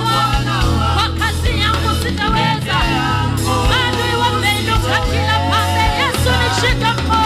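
Live gospel worship music: singing over a band with a steady bass line and a regular beat.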